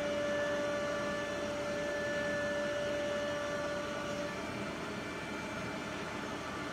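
Holztek PRO-R4F four-spindle CNC nesting router machining a wood panel: a steady spindle whine with several held tones over a noisy machine hum. The strongest tone fades about four seconds in.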